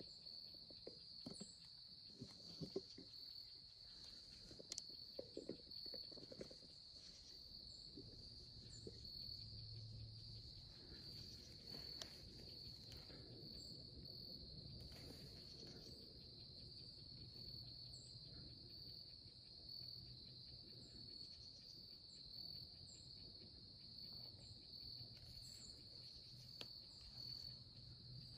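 Faint, steady, high-pitched cricket chorus trilling without a break, with a few faint rustles and clicks in the first several seconds.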